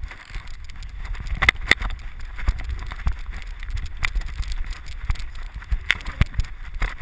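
Handling noise from a GoPro in its housing on a running Rhodesian ridgeback's back: a low, jostling rumble broken by irregular knocks and clicks as the dog bounds through snow.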